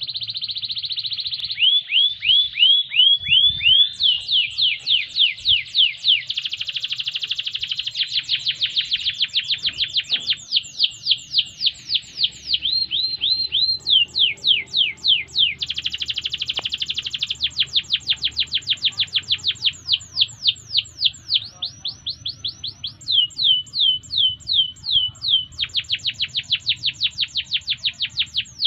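Yellow domestic canary singing a long unbroken song: rapid runs of the same note repeated many times over, each note sweeping down in pitch, switching every few seconds to a new run, with buzzy rolls in between.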